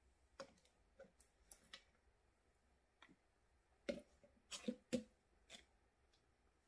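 Oil bottles and their caps being handled on a table: a scatter of light clicks and knocks, the loudest about four and five seconds in.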